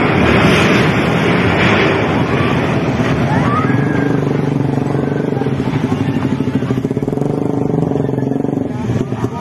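A motor vehicle engine running steadily under loud, noisy commotion with some voices. Near the end a fast, pulsing throb sets in.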